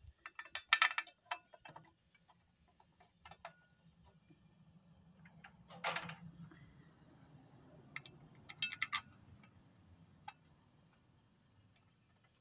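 Scattered metal clicks and clinks of hand tools and bolts as engine-mounting bolts are started into a tractor's cast iron frame: a short cluster about a second in, a louder click near the middle and a quick run of clicks later on, over a faint low hum.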